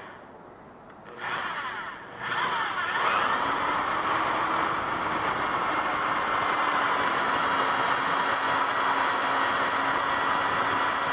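Power drill boring a hole through a metal jar lid: a short burst of the motor, then it spins up with a rising whine about two seconds in and runs steadily while cutting.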